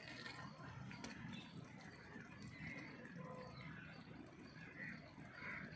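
Faint outdoor background with animal calls.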